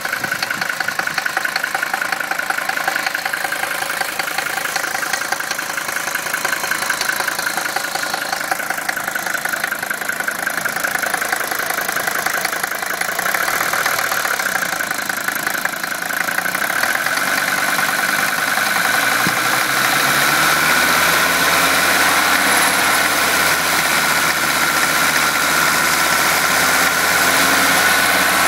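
1976 Mercedes-Benz 300D's five-cylinder diesel engine idling steadily with its diesel clatter, still warming up after a cold start. It gets louder about two-thirds of the way in, with a low hum joining.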